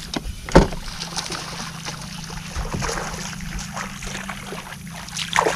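A steady low hum from a bass boat's electric trolling motor, with light clicks and knocks as a baitcasting reel is cranked to work a lure. One sharp knock comes about half a second in.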